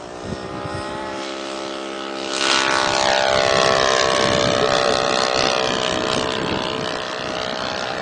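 Propeller-driven RC model airplane's piston engine running at high throttle, growing sharply louder as the plane passes close by about two and a half seconds in, then easing off slightly as it moves away.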